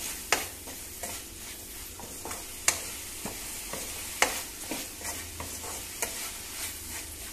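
Wooden spatula stirring vegetables frying in oil in an aluminium kadai: a steady sizzle with irregular sharp taps and scrapes of the spatula against the pan.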